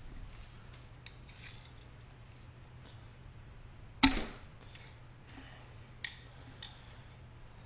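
Sharp metal clicks and snaps of a hand tool prying at a motorcycle fork's dust cover: one loud snap about four seconds in, a second about two seconds later, and a few fainter ticks.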